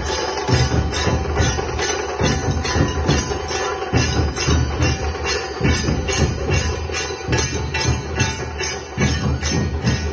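Loud dance music with a fast steady beat and heavy bass.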